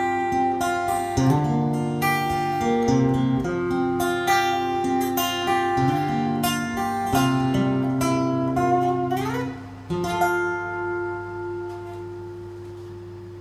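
Solo acoustic guitar playing a song's closing instrumental bars: picked and strummed notes, a short upward slide about nine seconds in, then a final chord struck a second later that rings out and fades.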